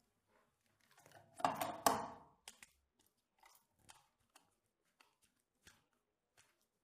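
Hands handling a plastic motor-starter contactor and its control wiring, with a rustling crunch about a second and a half in. After it come a series of small, sharp, irregular clicks as a screwdriver tightens a wire into the contactor's terminal screw.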